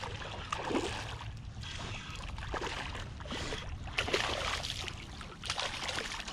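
Hooked fish thrashing and splashing at the water's surface as it is reeled in close, in irregular bursts of splashing.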